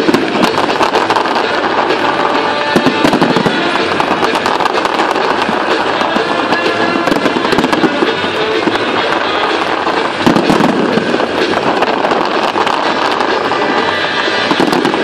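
A dense fireworks barrage: a continuous mass of rapid crackling and popping bursts from crackle-effect shells, with music playing underneath.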